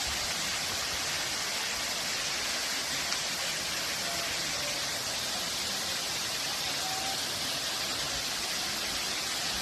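Steady rushing of falling and flowing water from a forest waterfall and stream, a constant hiss with no breaks.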